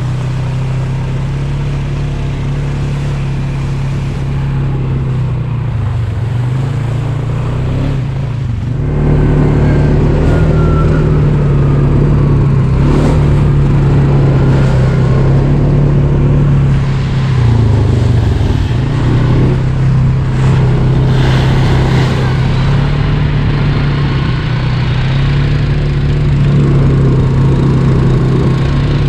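Off-road vehicle engine running, with the revs dipping and picking back up a few times. It gets louder about nine seconds in.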